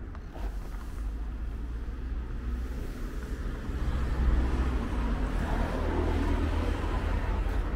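Low rumble of street traffic, growing louder about four seconds in.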